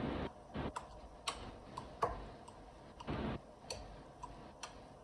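A metal fork scraping and clicking against a ceramic bowl while mashing potatoes, in irregular short strokes and taps.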